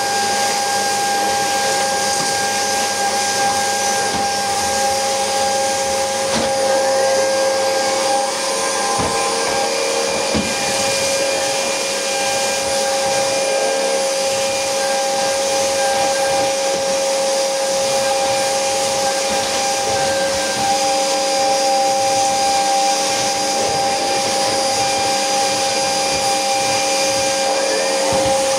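Red canister vacuum cleaner running steadily, with a constant whine over its motor noise, as the floor brush is pushed over a hard floor.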